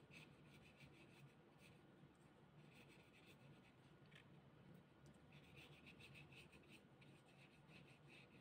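Faint, scratchy strokes of a paintbrush drawn across watercolour paper, coming in several short runs.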